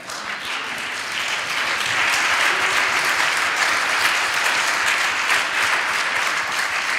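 Congregation applauding, the clapping building over the first second or two and then holding steady.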